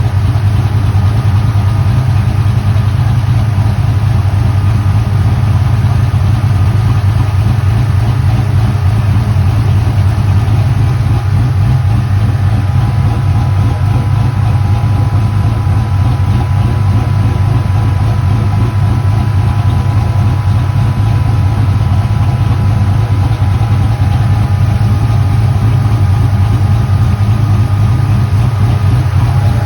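An engine idling steadily with a deep, even hum.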